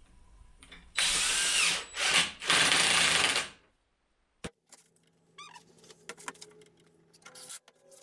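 Cordless impact driver driving 4x50 wood screws into a pine frame: three loud runs about a second in, the last and longest lasting about a second. A single sharp click follows, then light knocks of handling.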